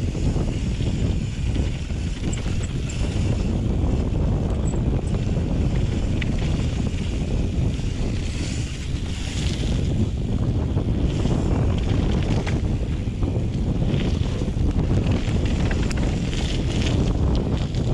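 Wind buffeting the microphone of a camera on a mountain bike riding fast downhill, over the rumble of knobby tyres rolling on a gravel trail, with scattered small clicks and rattles from the bike.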